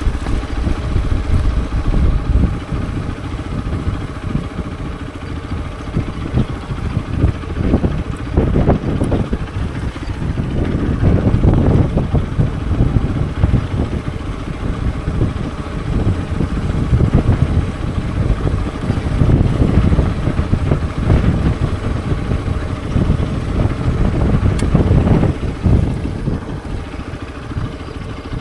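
Hero XPulse 200 4V's single-cylinder engine running, swelling in level several times as the throttle is opened and eased off.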